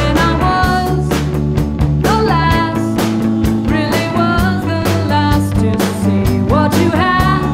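Live rock band playing: a woman sings lead in several sliding phrases over an electric keyboard, with a steady beat and bass underneath.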